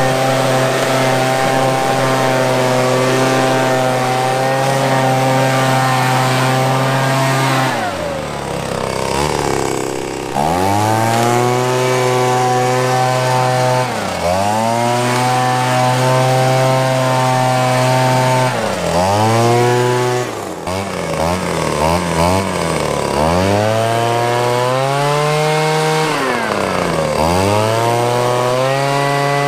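Wild Badger 26cc two-stroke handheld leaf blower running at full throttle, then dropping toward idle and revving back up again and again. About two-thirds of the way through it gives a quick run of short throttle blips.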